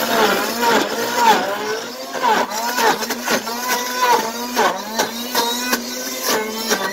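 Pampered Chef Deluxe Cooking Blender motor grinding clumped frozen fruit on its grind setting. Its pitch keeps dipping and recovering as the load changes, with frequent sharp knocks throughout.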